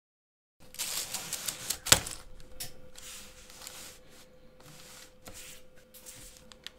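LEGO plates clicking, clacking and rattling against each other as a hinged plate build is handled and flexed, with one sharp click standing out about two seconds in.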